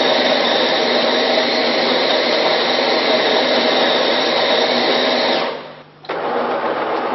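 Bean-to-cup coffee machine's built-in grinder running steadily, then cutting out about five and a half seconds in. Half a second later a quieter, steady machine hum starts as the machine goes on to brew.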